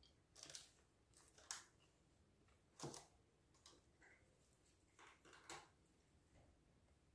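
Faint, short scrapes and taps of a spatula against a glass mixing bowl as thick cake batter is scraped out into a loaf pan, a handful of separate strokes over a few seconds.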